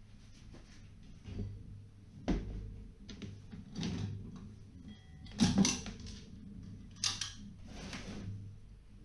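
Handling noises from electrical wiring work with tools and heat-resistant cable: rustling with scattered clicks and knocks, the sharpest about two, five and a half, and seven seconds in.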